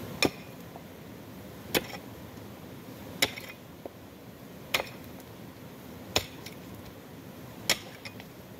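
Pick-axe striking rocky dirt, six sharp blows evenly spaced about a second and a half apart.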